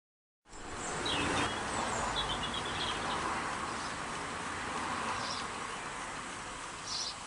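Replica Märklin model steam engine running fast on compressed air, starting about half a second in: a steady hissing buzz from the air exhausting and the spinning flywheel. A few short, faint high chirps sound over it.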